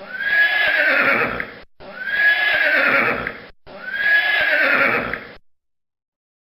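Horse whinnying three times in a row, the same whinny of about a second and a half repeated each time, ending about five and a half seconds in.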